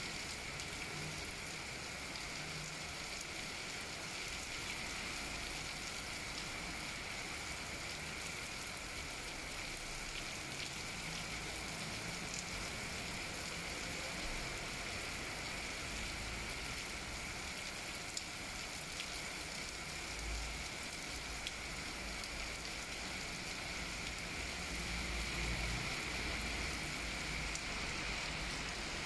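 Steady rain falling during a thunderstorm: an even hiss of rain with a few drip ticks.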